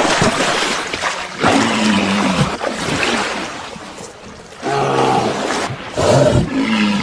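A crowded walrus herd calling, several pitched bellows and grunts about two, five and six seconds in, over rushing, splashing water.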